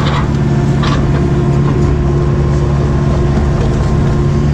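Cat 307B excavator's diesel engine running steadily under load, with a couple of short rattles about a second in.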